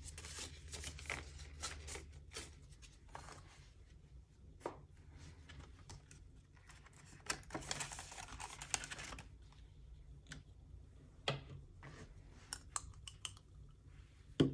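Canadian polymer banknotes and a clear plastic binder envelope being handled: faint crinkling and rustling with scattered light clicks, the longest rustle about eight seconds in as the bills are slid into the envelope pocket.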